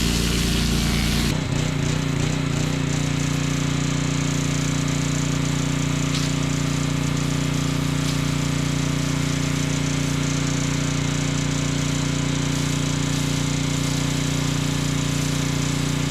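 Small gas engine running steadily at constant speed, typical of a pressure washer's engine. The sound shifts abruptly about a second in and then holds an even drone.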